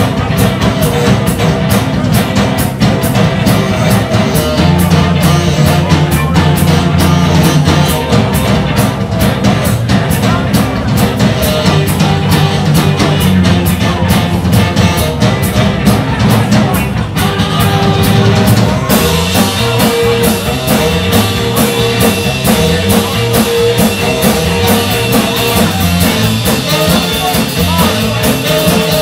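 Live rock-and-roll band playing in a small club: pounding drum kit, electric bass, electric guitar and tenor saxophone, with a driving beat.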